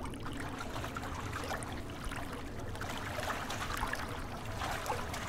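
River water lapping and gurgling gently and steadily, with a low rumble underneath.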